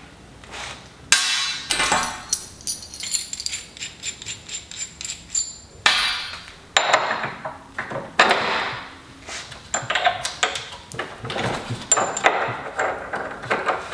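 Steel mounting hardware (bolts, washers and nuts) clinking and clicking as it is handled and fitted to the vise base. Quick runs of sharp clicks with a high metallic ring come in bursts, starting about a second in.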